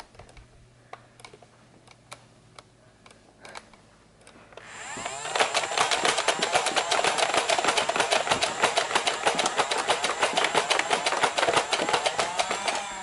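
A Nerf Stryfe's battery-powered flywheel motors spinning up about four and a half seconds in and running for about eight seconds: a loud, rapid whirring buzz with a high whine, winding down at the end.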